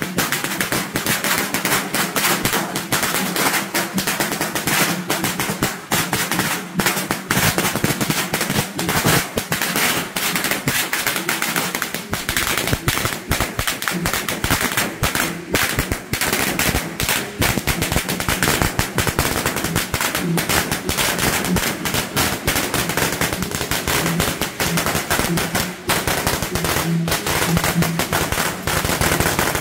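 A long string of firecrackers crackling in a dense, rapid, unbroken stream of bangs.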